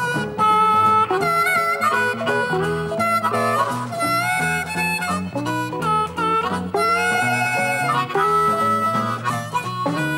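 Amplified blues harmonica, cupped in the hands against a microphone in the Chicago style, playing held and bent notes over an electric guitar accompaniment.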